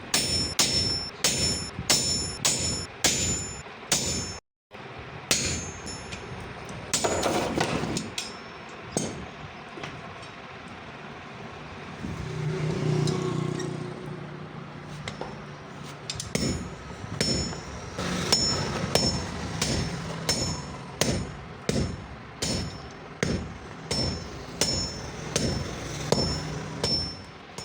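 Hand hammer forging steel on an anvil: repeated ringing metal strikes, one to two a second. The blows stop for a few seconds in the middle while a steady low hum runs, then resume in an even rhythm.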